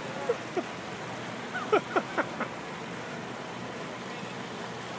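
Steady rush of rain and running floodwater after a hailstorm. About two seconds in, a few brief pitched sounds sweep downward.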